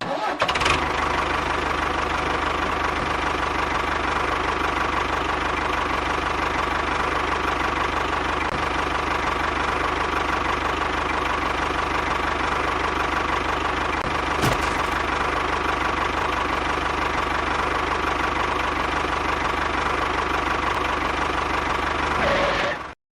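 A motor running steadily, starting suddenly and cutting off suddenly near the end, with one brief click partway through.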